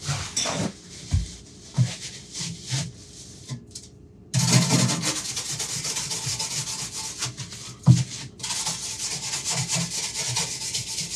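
A stainless steel wire brush scrubbing built-up gunk off the sink in fast, scratchy strokes, starting about four seconds in after some light knocks and rustling. The scrubbing breaks briefly with a knock about eight seconds in, then carries on.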